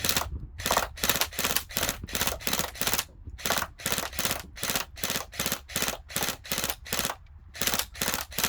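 ASG Scorpion Evo airsoft electric gun firing 6 mm BBs on semi-automatic, with shots coming quickly one after another at about three a second. The run of shots breaks off briefly about three seconds in and again about seven seconds in.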